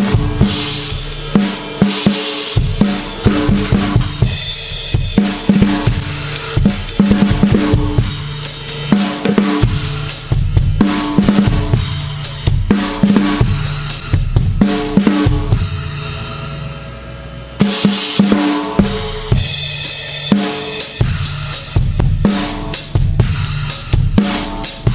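A 2007 Pearl Vision drum kit with Zildjian cymbals, played as a full-kit groove of kick, snare and cymbals in quick hits. About two-thirds of the way in the playing stops and a cymbal crash rings out and fades for a second or two, then the drumming starts again.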